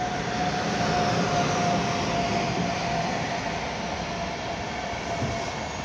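Siemens EU44 Husarz electric locomotive and its intercity coaches running past, a steady rail rumble loudest a second or two in. Over it is a held whine that sinks slightly in pitch.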